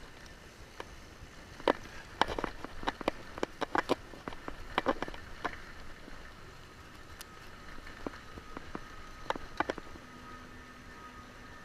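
Mountain bike clattering over a bumpy dirt trail: irregular sharp knocks and rattles from the bike, in clusters, over a low rumble of tyre and wind noise.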